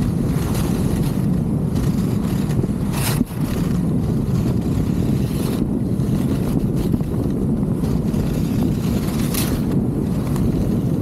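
Wind rushing over a helmet camera's microphone while skiing downhill, with skis running over the snow. A brief sharp hiss, likely a ski edge scraping, comes about three seconds in and again near the end.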